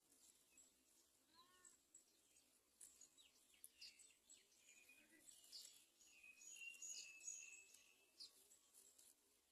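Faint high-pitched bird chirps and short calls, many in quick succession, growing busier after the middle, with one lower arched call about a second and a half in.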